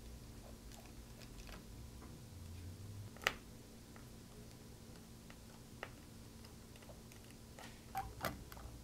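Faint scattered clicks and ticks of a small tri-wing screwdriver turning out the screws that hold a laptop battery. One sharper click comes about three seconds in, and two more near the end.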